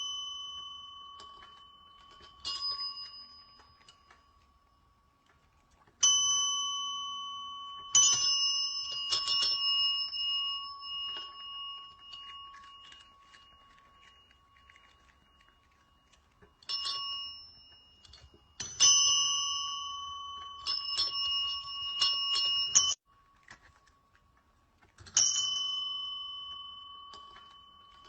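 A small bell struck again and again, each ding ringing out and fading away. In places several quick strikes come in a row, and one run is cut off sharply near the end.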